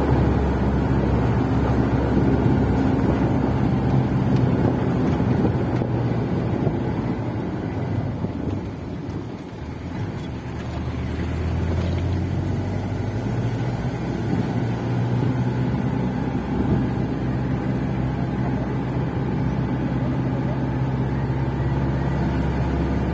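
Motor vehicle engine running steadily, heard while driving. The drone eases off about nine seconds in, then picks up again.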